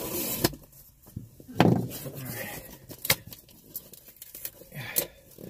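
Cardboard package being handled while its tough packing tape is cut at with a razor blade: scraping and rustling with a few sharp clicks, and a dull thump about a second and a half in.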